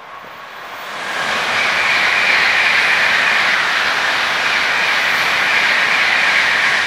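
N700-series Shinkansen bullet train passing through the station at high speed, a loud rushing noise of wheels and air. It swells over about the first second, holds steady while the cars go by, and begins to fade at the end.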